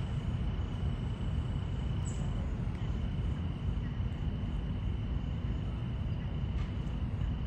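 Outdoor ambience: a steady low rumble with a continuous high-pitched whine over it, which breaks off briefly a few times.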